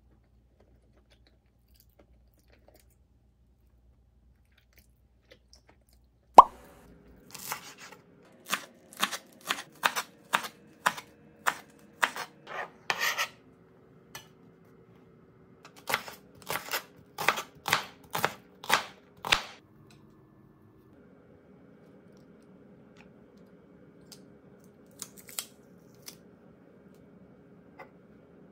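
A kitchen knife chopping greens on a wooden cutting board, in two runs of crisp strokes at about two a second, after a few seconds of near silence. A faint steady hum follows in the last part.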